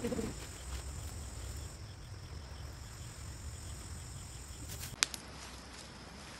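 Faint, steady chirring of insects such as crickets in a wooded campsite, with a single sharp click about five seconds in.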